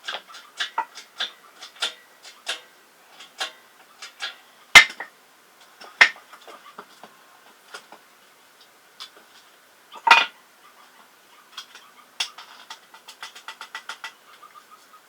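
Metal parts and tools clinking and knocking in quick, irregular clicks, with three louder metal knocks about five, six and ten seconds in, and a quick run of clicks near the end.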